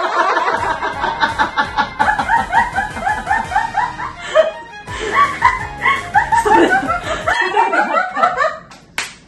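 Two women laughing hard in quick, rapid bursts, with background music under it.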